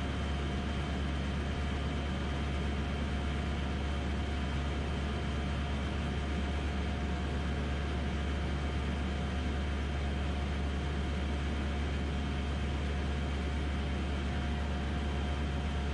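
Steady cockpit drone of a DynAero MCR01 ultralight in cruise flight: its engine and propeller, heard inside the cabin as a deep constant hum with faint steady whines and a haze of noise above it.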